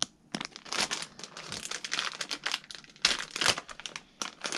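Plastic bag of soft-plastic fishing worms crinkling as it is handled, in a run of sharp crackles that are loudest about three seconds in, with a short pause near the end.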